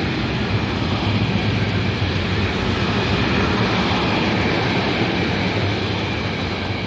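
A train passing on the line: a loud, steady rush and rumble of wheels on rail.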